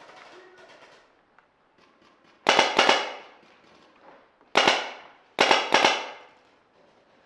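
Paintball marker firing close by in short, rapid bursts of sharp pops. The first cluster comes a couple of seconds in, followed by further bursts of two or three shots in the second half.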